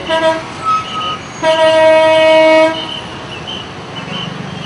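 Vehicle air horns blaring in street traffic: a short blast cut off just after the start, then one long, loud blast of about a second and a half. Shorter, higher-pitched honks from other vehicles come in between and after.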